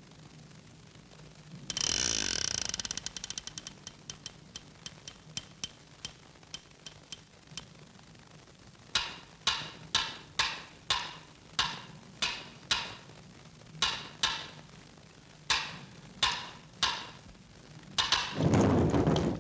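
A dense rattle of clicks that slows and thins out, then a run of sharp, briefly ringing knocks at irregular intervals of about two a second, ending in a short loud rushing burst.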